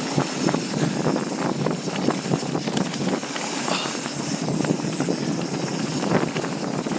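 Specialized Enduro mountain bike descending a dirt trail: knobby tyres rolling over dirt and rock, with frequent rattles and knocks from the bike and wind noise on the microphone.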